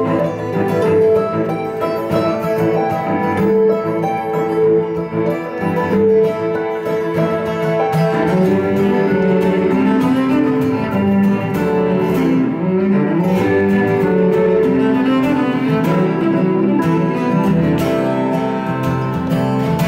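Live instrumental folk music from a fiddle, cello, guitar and Celtic harp. The fiddle and cello bow long held melody notes over the guitar accompaniment.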